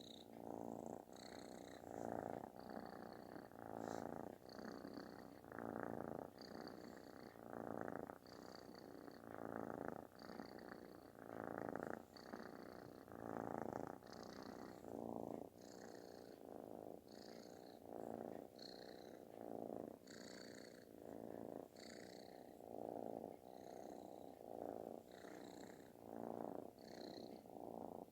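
Calico kitten purring very loudly with a snore-like sound, swelling and fading with each breath about once a second.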